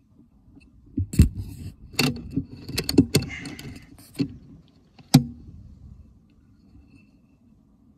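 Handling noise from an air rifle and its scope-mounted phone being shifted: a run of sharp knocks and clicks with a brief rustle in the middle, loudest near the start and again near the end.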